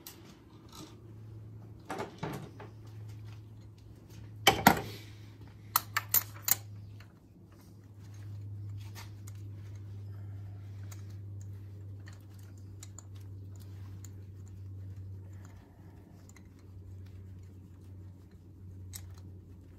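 Scattered metallic clicks and taps of hand tools being worked in the spark plug wells of a cylinder head, including a quick run of four sharp clicks about six seconds in. A steady low hum runs underneath.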